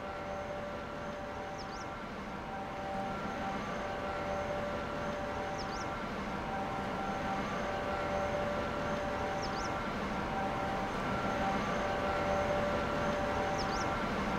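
Steady mechanical hum of a large ship's engines and machinery, with several level tones in it, slowly growing louder. A short high chirp repeats about every four seconds.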